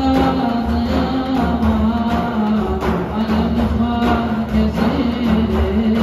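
Ensemble of large hand-held frame drums (def) beaten together in a steady rhythm, with deep low strokes, under a man singing a Turkish folk melody in long held notes.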